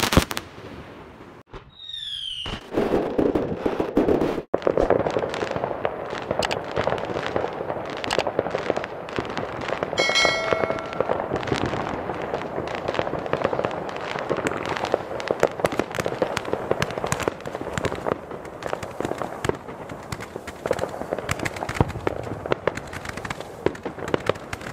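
Fireworks going off densely: a continuous run of bangs and crackling from many shells and firecrackers. A short whistle falls in pitch about two seconds in, and a steady whistling tone sounds for about a second around ten seconds in.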